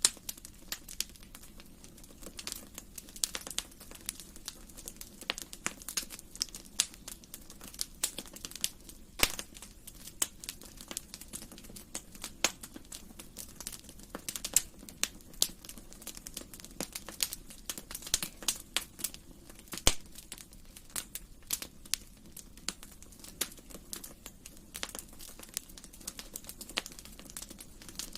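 Wood fire crackling in a fireplace: irregular sharp pops and snaps over a soft, steady low background.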